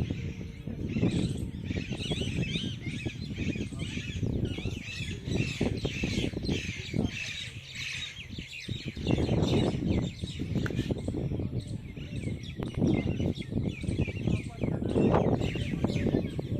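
A flock of small birds chirping and twittering continuously over the noise of running water. The chirping thins and the water grows louder about nine seconds in.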